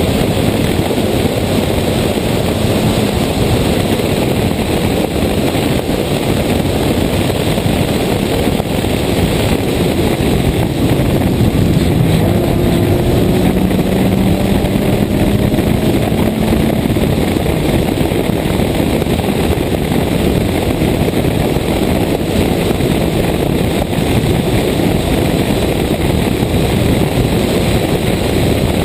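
Toyota Corolla 1.6 rally car driven at speed, its engine running hard under heavy wind and road noise on an exterior-mounted camera. The engine note climbs in pitch midway through.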